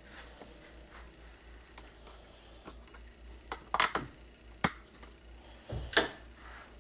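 A few sharp clicks over quiet room tone: a short cluster a little under four seconds in, a single click about a second later, and a last click with a soft thump about six seconds in, as a wall light switch is flipped on. The earlier clicks are handling of the handheld camcorder.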